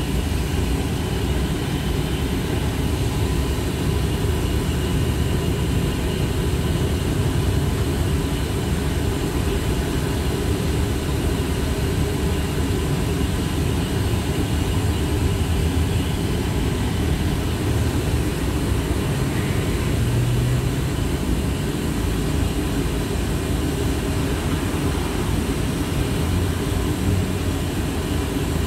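Interior running noise of a TrolZa-62052.02 trolleybus on the move: a steady low rumble of body and road, with thin, steady electrical whine tones above it.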